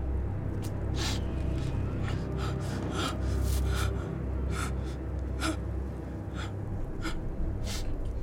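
A person gasping for breath, a string of short sharp breaths about one every half second to second, over a low steady rumble.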